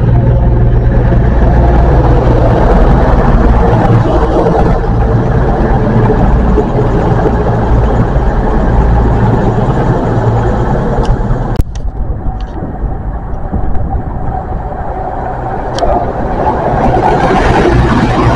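CrossCountry Voyager diesel multiple unit running at the platform, its underfloor diesel engines giving a steady low drone with wheel and rail noise as it arrives. The sound breaks off sharply about two-thirds of the way through, comes back quieter, and builds again near the end as the train pulls away.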